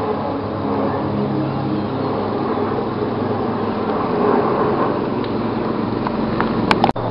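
Steady engine rumble and drone, with a few sharp clicks and a brief dropout near the end.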